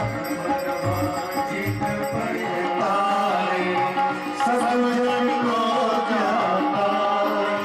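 Indian music: a melody sung or played over drum beats. The low drum thumps fall away about two seconds in while the melody carries on.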